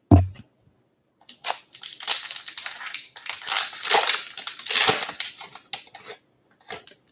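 A short thump, then a foil trading-card pack being torn open and its wrapper crinkled for several seconds as the cards are pulled out.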